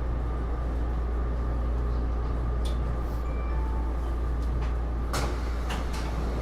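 Steady low hum heard from inside a Taipei Metro Series C301 metro car, with a few sharp knocks and clicks about two and a half seconds in and three more around five to six seconds in.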